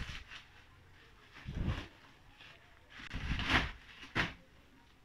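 Clear plastic wrap being pulled off a plastic tower air cooler, rustling and crinkling in a few short bursts, with dull bumps as the unit is handled. The sharpest crackle comes about four seconds in.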